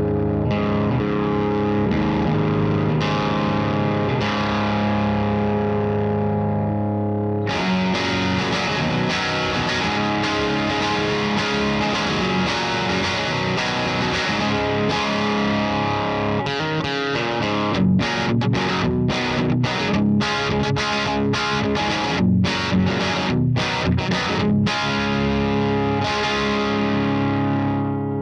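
Gibson Les Paul electric guitar played through a Klon-style overdrive pedal into a Satellite Neutron EL84 valve amp, giving a crunchy overdriven tone. Held, ringing chords give way about seven seconds in to a busier riff, and about two-thirds of the way through come short stabbed chords with gaps between them.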